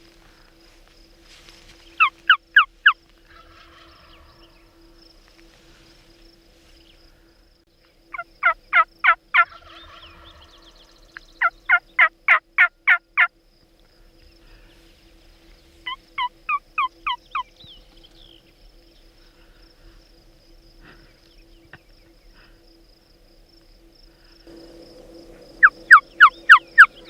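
Turkey yelping: five runs of sharp, evenly spaced notes, four to eight notes per run, with pauses of several seconds between runs. The runs are the loudest sound present.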